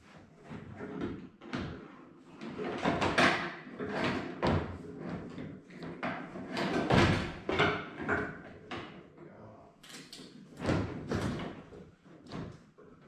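A UTV windshield panel being handled and fitted against the Kawasaki Mule Pro-FXT's roll cage: irregular bumps, rattles and rubbing of hard plastic on the frame, loudest about three, seven and eleven seconds in.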